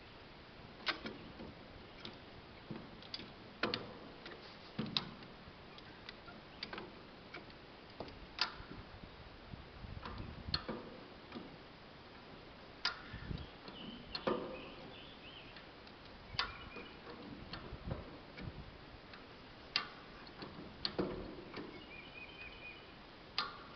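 Irregular sharp metal clicks and knocks, roughly one a second, from hand-worked lifting gear being operated.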